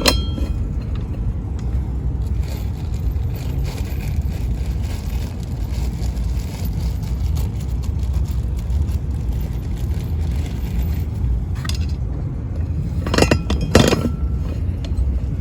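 Steady low rumble with a few metallic clinks and scrapes of bolts and seat-mounting hardware being fitted, the loudest clinks near the end.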